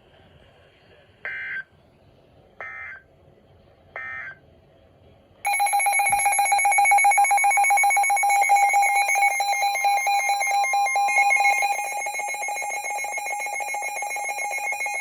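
Three short screeching bursts of weather-radio SAME digital data, about a second and a half apart, between EAS messages. Then, about five seconds in, a weather alert radio's electronic alarm sounds a loud, rapidly pulsing beep for about ten seconds, signalling a new warning.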